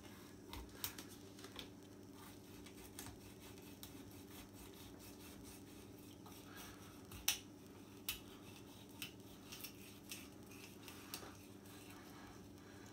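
Knife slicing a sea bream fillet away from the bone on a plastic cutting board: faint scattered scrapes and clicks, the sharpest about seven seconds in.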